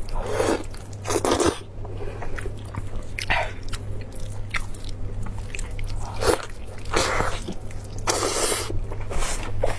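Close-miked eating sounds: biting into and chewing a large piece of braised meat, with wet bursts coming every second or so as it is bitten and pulled apart. A steady low hum runs underneath.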